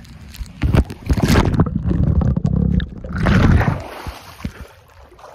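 Pool water splashing and sloshing right over a phone's microphone as the phone is dunked. It is loud from about a second in until nearly four seconds in, then dies away.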